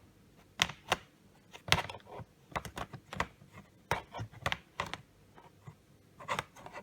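Keys being tapped on a laptop keyboard: a run of short, irregular clicks.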